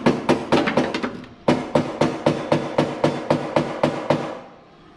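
A hammer tapping on a lawnmower's welded steel pipe handle in quick strikes, about four a second, each with a short metallic ring. The tapping breaks off briefly a little over a second in and stops about four seconds in.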